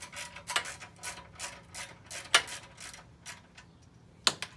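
Small socket ratchet clicking in short back-strokes, about two clicks a second, as it backs off the 10 mm nut on top of a Predator 212 engine's throttle assembly. A single louder, sharp knock comes near the end.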